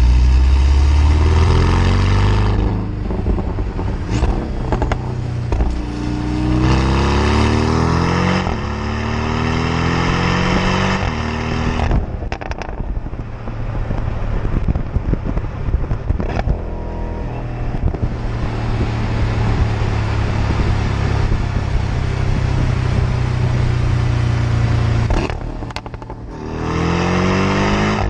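Four-cylinder sports car's exhaust heard close to its twin tailpipes at speed. The engine pulls hard up through several gears, its pitch rising through each gear and dropping at each shift. It then backs off with a few sharp cracks, cruises steadily, and accelerates again near the end.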